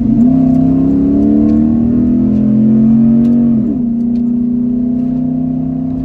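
The 5.7-litre V8 of a 2007 Dodge Ram 1500 pulling under acceleration, heard inside the cab: its pitch climbs over the first few seconds, dips once about three and a half seconds in, then holds steady.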